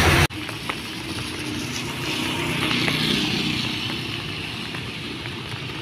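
A louder low hum cuts off abruptly a moment in. Then a motorbike passes on the rain-soaked street, its tyres hissing through the water, swelling and then fading in the middle.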